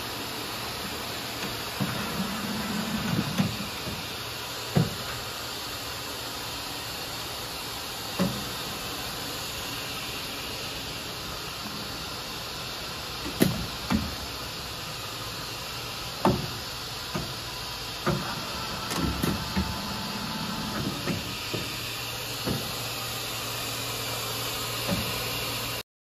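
Steady hiss and low hum of a machine shop's background noise, broken by scattered knocks and clicks every few seconds.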